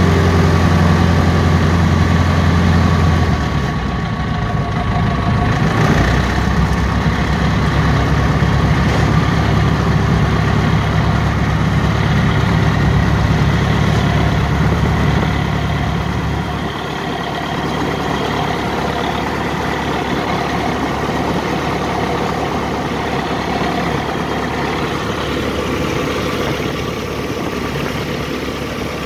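Ercoupe's piston engine and propeller running at low power during the landing roll-out, heard from inside the cockpit. The engine note drops a few seconds in and again about halfway through as power comes back further.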